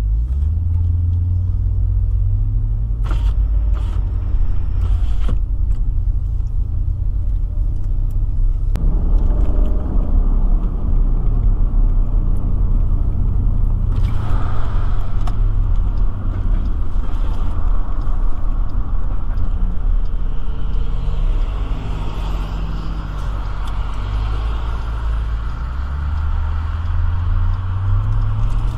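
Car driving along a road, heard from inside the cabin: a steady low rumble of engine and tyres. It grows fuller about nine seconds in, and a brighter hiss comes in around fourteen seconds.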